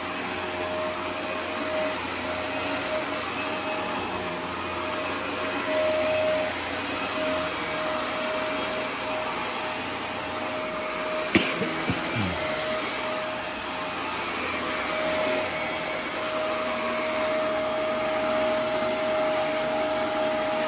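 Dyson DC24 upright ball vacuum running steadily: a rush of air with a steady tone over it, which the owner takes for air passing through an air path, perhaps a slight blockage. A couple of sharp knocks about halfway through.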